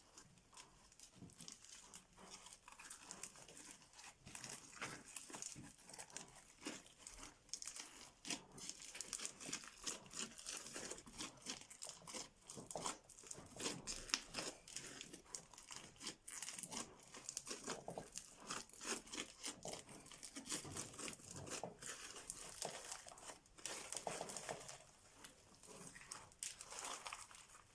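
Slime being squeezed and worked by hand, giving a dense run of small crackles and pops.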